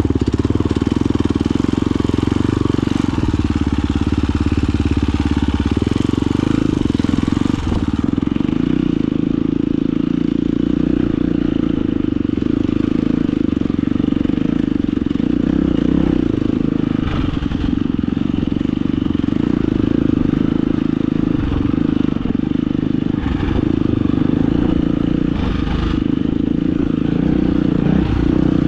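Husqvarna FE250 four-stroke single-cylinder enduro motorcycle engine running at steady low revs while the bike is ridden, its pitch shifting slightly a few times in the second half.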